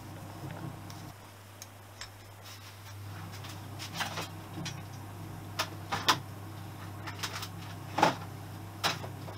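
Tools and engine parts being handled at a workbench: a few sharp clinks and knocks, the loudest about six and eight seconds in, over a steady low hum.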